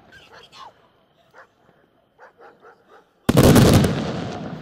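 Aerial firework shell bursting with a sudden loud bang about three seconds in, then a long fading rumble. Before it only a few faint short sounds.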